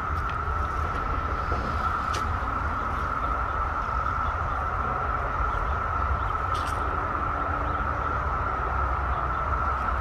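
Chorus of periodical cicadas: a steady droning buzz held at one pitch, over a low rumble.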